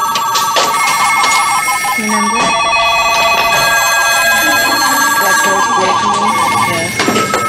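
Several telephones ringing at once, their trilling electronic rings overlapping and starting and stopping out of step, over a murmur of voices: a busy phone-bank atmosphere.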